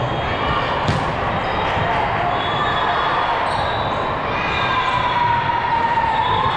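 Echoing din of a busy volleyball gym: many voices blending together with volleyballs being hit and bouncing, one sharp ball smack about a second in.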